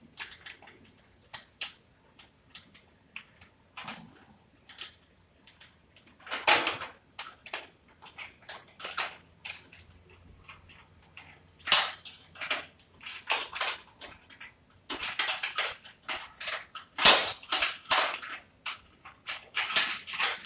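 Metal garage door hardware being handled: scattered clicks, clinks and knocks, sparse at first, then coming in clusters and busier in the last third.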